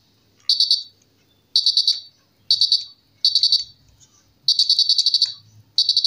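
Piezo buzzer on a home-made infrared remote-control switch circuit beeping each time a remote button is pressed. It gives six short, high-pitched bursts, each one a rapid stutter that follows the remote's coded infrared pulses. The last and longest burst comes about four and a half seconds in.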